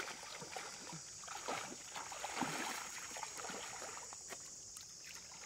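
Water splashing and sloshing in irregular strokes.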